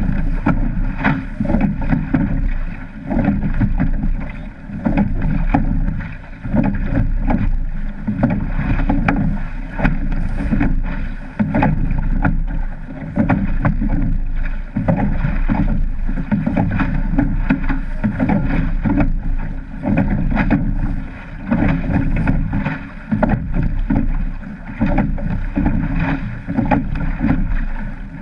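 A wooden-oared surf boat being rowed at sea, heard from a camera mounted on the boat: wind on the microphone and water rushing along the hull, broken by frequent knocks and splashes of the oars. The sound swells and dips every two to three seconds.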